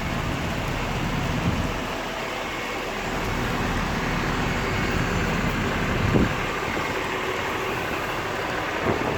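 Steady wash of rain mixed with road traffic, the hiss of vehicles on wet streets, with a brief low knock about six seconds in.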